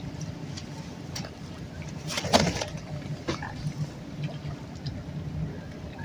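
Riverside ambience with a low steady rumble and soft water sounds, broken by a short, loud rushing burst a little over two seconds in.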